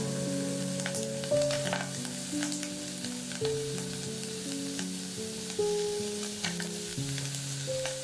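Sliced onion and ham sizzling as they are stir-fried in an aluminium pot, with scattered light ticks, over background music of held notes that change about once a second.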